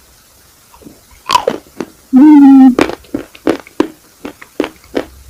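Close-up crunching bites and chewing of an ice cream cone, a sharp crunch about every half second. Just past two seconds in, a loud hummed "mmm" lasting about half a second.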